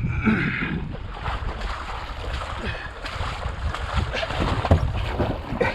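Water splashing and sloshing as a jet ski is heaved through shallow water, with wind buffeting the microphone.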